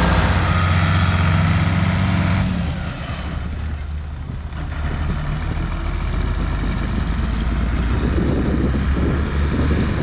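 Farm tractor engine running steadily close by. About two and a half seconds in the sound drops to a lower, fainter running of a tractor pulling a feed wagon across the field.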